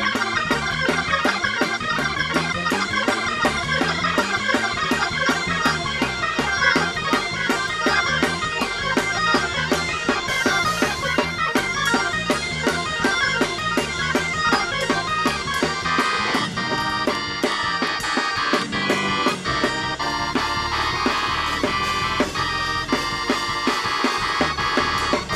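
Organ playing fast gospel praise music over a quick, steady beat.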